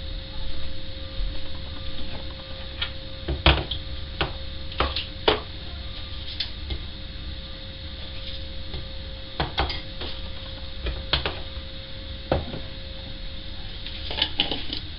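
Road sweeper truck running with a steady low rumble and a held hum, with about ten sharp knocks and clicks scattered through it.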